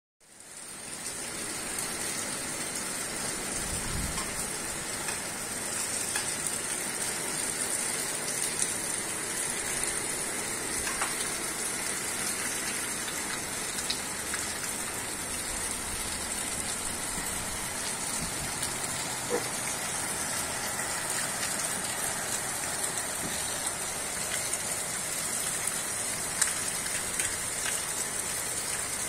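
Steady rain falling, with a few louder drips ticking now and then. The sound fades in just after the start.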